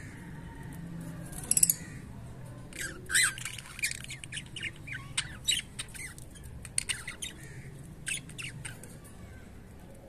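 Cockatiels calling: a quick burst of sharp, high squawks about one and a half seconds in, then a run of short chirps and squawks that stops a little after eight seconds in.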